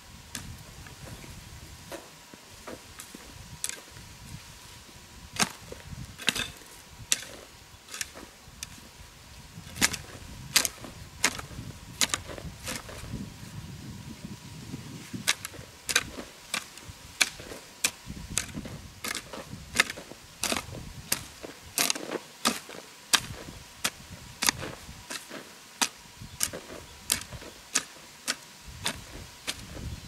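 Repeated sharp chopping knocks on wood, at an irregular pace of about one to two a second, coming thicker in the second half.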